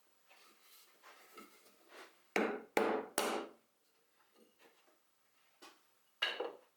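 Sharp knocks on wood: three quick strikes about two and a half seconds in and one more near the end, with lighter taps and handling before them.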